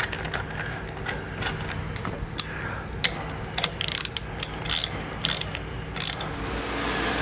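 Hand ratchet clicking in about five short runs between three and six seconds in, as screws on a motorcycle handlebar clamp are driven in. Before that come light metal clicks and taps of the tools.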